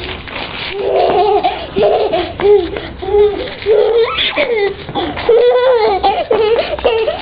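A child laughing in short repeated bursts.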